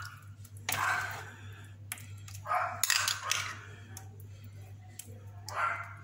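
A metal spoon scraping as it spreads tomato sauce over pizza dough on a baking tray, in a few separate strokes, over a steady low hum.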